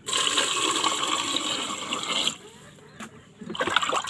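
A stream of water pouring into a pot of cut hilsa fish pieces for a little over two seconds, then stopping. Near the end a hand swishes the fish pieces around in the water, splashing, as they are washed.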